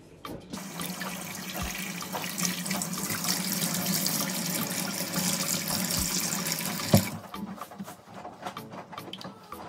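Tap water running into a sink and splashing as shampoo is rinsed out of hair held under the stream. The water stops suddenly about seven seconds in, with one sharp knock.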